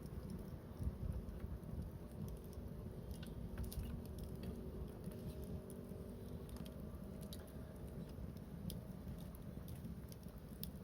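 Wood bonfire burning, crackling with scattered sharp pops and snaps over a steady low rumble.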